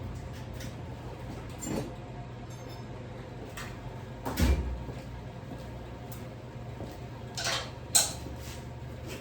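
Scattered metal clanks and knocks from work on a steel car frame over a steady low hum. The heaviest knock, with a deep thud, comes about four and a half seconds in, and two sharper clanks follow near the end.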